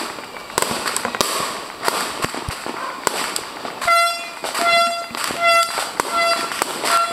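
New Year's firecrackers going off in quick, irregular cracks and pops. From about four seconds in, a horn joins them with short honks on one pitch in a steady rhythm, about five blasts.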